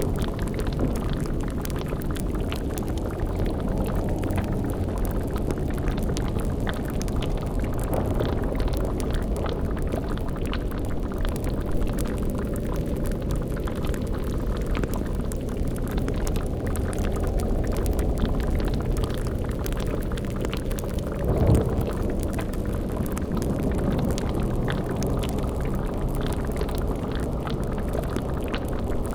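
Layered spooky ambience: a steady low rumble with a bubbling boiling cauldron and crackling fire, with one brief louder swell about two-thirds of the way through.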